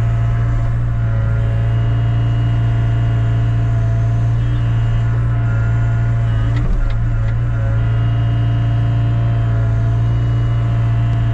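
A heavy diesel engine idling steadily with a strong low hum, with a brief clatter about seven seconds in.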